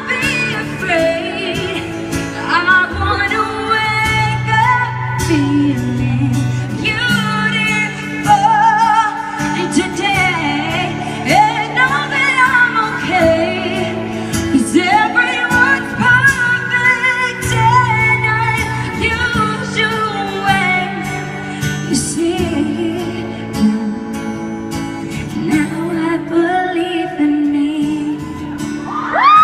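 A woman singing live over band accompaniment, her voice sliding and wavering over sustained low notes.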